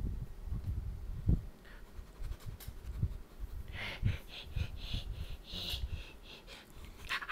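A hand rubbing and petting a cat's fur right at the microphone, giving irregular soft bumps and rustles. A run of short breathy rustling sounds comes in the second half.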